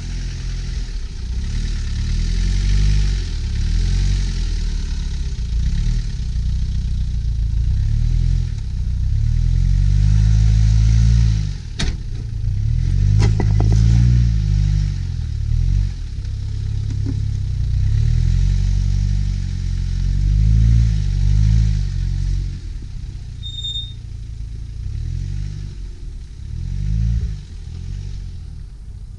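Land Rover Discovery engine revving up and down repeatedly as the vehicle crawls over a rock slab, with a couple of sharp knocks near the middle.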